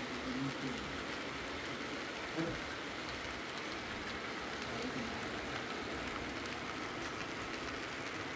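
Model freight train rolling along the layout track, a steady rattling hiss of small wheels on rail.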